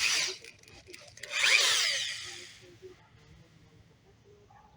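Power drill run in two short bursts, driving a screw through the plastic diffuser into the bumper corner. The second burst, about a second in, is longer and louder and winds down as the trigger is released.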